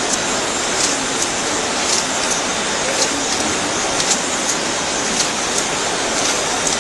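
ST440A two-head wire stitching machine running, its heads stitching with sharp clicks that come in pairs about once a second, over a steady hiss of hall noise.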